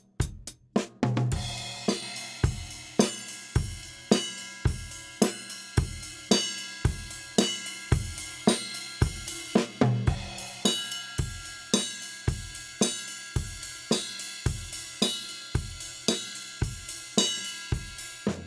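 Raw, unprocessed recording of a 1960s Ludwig drum kit with a 1970s Ludwig Supraphonic snare and Zildjian A cymbals, played solo. A few separate hits open it, then from about a second in a steady beat of kick and snare, about two hits a second, under a continuous wash of cymbals, stopping just before the end.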